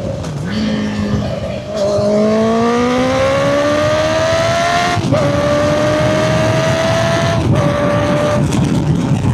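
Honda CB650F inline-four engine breathing through a CBR650R exhaust with a custom-made muffler, accelerating up through the gears. The rising note cuts briefly at gear changes about five and seven and a half seconds in, then holds and fades near the end.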